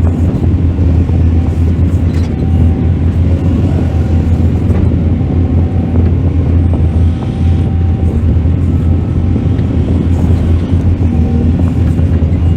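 Mining excavator's diesel engine running steadily under work, a loud continuous low drone.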